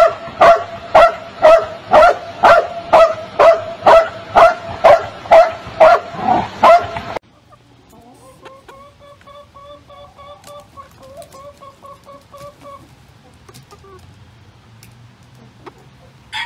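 A dog barking steadily, about two barks a second, stopping abruptly about seven seconds in. Then a hen clucking quietly in long runs of quick notes.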